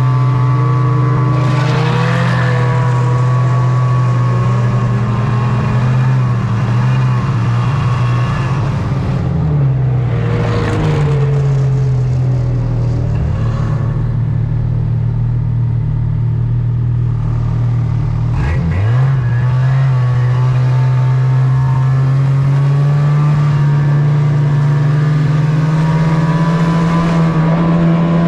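Snowmobile engine running under throttle as the sled pulls away and picks up speed. Its note dips and recovers twice, about a third and two thirds of the way through, then climbs steadily near the end as the sled reaches about 25 mph. Brief rushing noises come early and again about a third of the way through.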